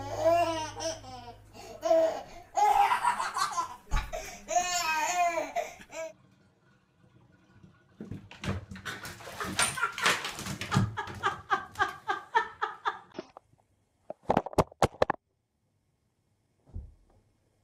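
Toddler laughing in repeated bursts of giggles for about six seconds. After a short pause, a stretch of rapid scrabbling noise follows, and then a few sharp clicks.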